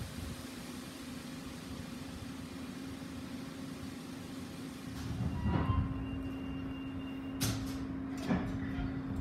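Konstal 114Na tram standing with a steady electrical hum. About five seconds in it starts to pull away: a low rumble of wheels and running gear builds, with a few short tones and a few sharp knocks.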